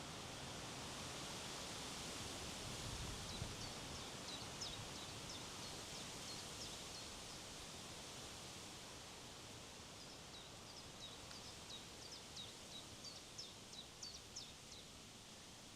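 Steady wind rustling through trees. A small bird sings over it in two bouts of quick, high chirps, the first a few seconds in and the second in the latter half.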